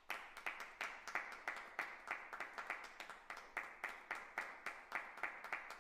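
Audience applauding, with separate hand claps standing out in a quick, uneven patter.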